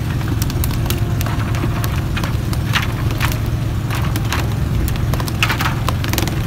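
A fishing boat's motor running steadily with a low drone, under frequent irregular sharp knocks, slaps and splashes as tuna are jerked out of the water on poles and land on the deck.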